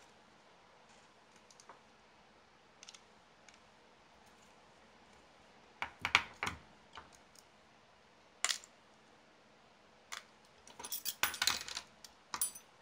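Small hard clicks and light clatters of tiny plastic and metal RC car parts being handled and worked with a screwdriver during disassembly, coming in scattered bursts with a busy run of clicks near the end.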